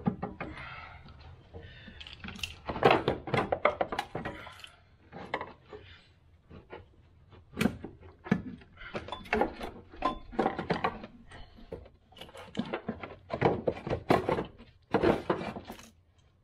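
Plastic engine-bay tray being worked loose and pulled out by gloved hands: a run of irregular knocks and clunks with plastic rattling and scraping.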